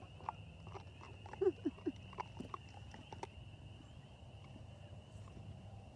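A chorus of frogs calling from a pond, a steady high trill. A few short squeaks and sharp clicks stand out between about a third of a second and three seconds in.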